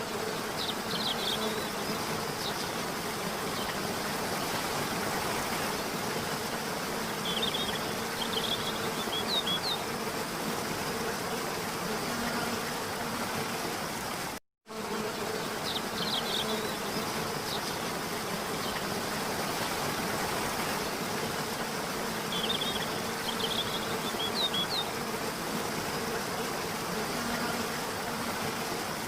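Looped nature ambience: a steady rush of falling water under a continuous buzzing hum of insects, with a few short high bird chirps. The sound drops out for a moment about halfway, then the same stretch repeats.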